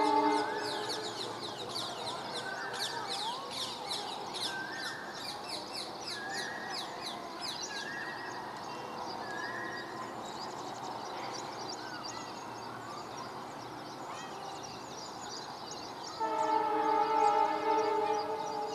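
Air horn of a WDG-4 diesel locomotive sounding, a short end of a blast right at the start and one long steady blast near the end. In between, birds chirp rapidly over a light background.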